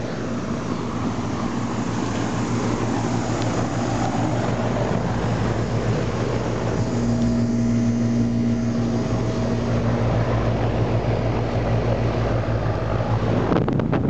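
1993 Janitrol 4-ton central air-conditioner condenser running, loud: the Bristol reciprocating compressor's steady low hum under the rushing air of the condenser fan. It grows louder as the microphone comes close to the fan grille.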